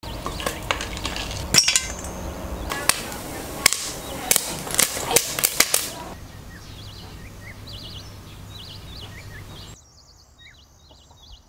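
Popcorn kernels popping in a hot pan: sharp, irregular pops over a sizzle for about six seconds, then only a quieter hiss that drops away near the end.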